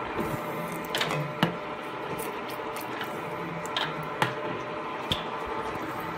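FUS22 milling machine running with a steady hum, while a slotting tool made from an old broach is stroked through the bore of an electric motor rotor to cut a keyway. Sharp metallic clicks come five times, mostly in pairs about half a second apart.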